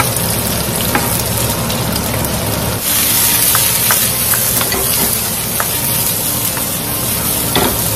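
Sliced onion, garlic, green onion and chilies sizzling in hot oil in a wok as they are stir-fried and tossed, with light clicks of a wooden spatula against the pan. The sizzle gets brighter about three seconds in.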